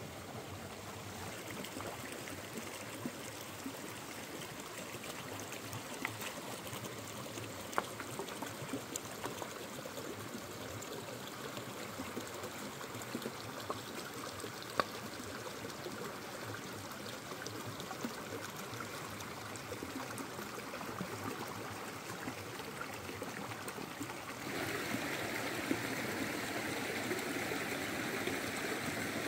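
Shallow rocky stream running over stones, a steady rush of water with a few faint clicks. About 24 seconds in it jumps louder and brighter.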